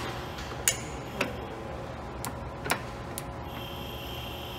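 Sharp, irregular clicks from a manual lathe's apron levers and hand wheel being handled during a pre-start check of the controls, about five in all, three of them louder, over a low steady hum.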